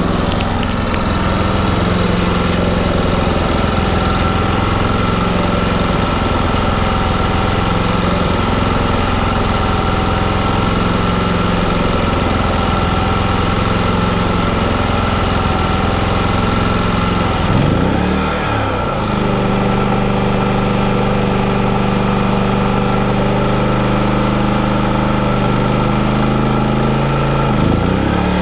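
Westinghouse iGen 4500 DF inverter generator running steadily on propane. About two-thirds of the way through, its engine note glides and settles at a different steady speed, and shifts again near the end, as the inverter's eco mode adjusts engine speed to the electrical load from the trailer.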